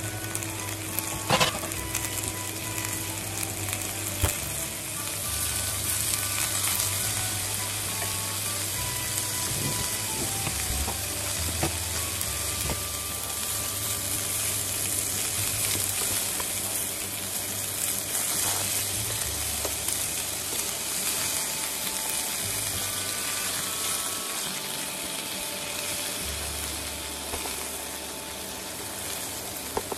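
Pork-wrapped onion rolls sizzling in oil in a rectangular tamagoyaki frying pan, the sizzle growing louder a few seconds in. A few sharp taps of wooden chopsticks against the pan as the rolls are turned, the loudest about a second in.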